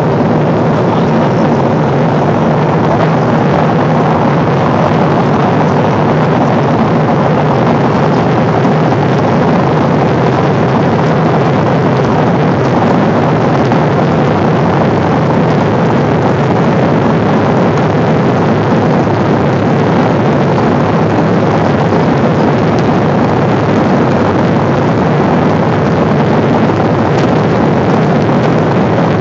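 Steady cabin noise of a Boeing 777 airliner in flight, heard inside the cabin at a window seat: an even, loud rush of engine and airflow noise with a low hum beneath it.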